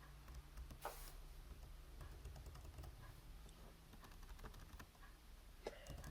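Fast typing on a slim chiclet keyboard: a quick, continuous run of faint, soft key clicks.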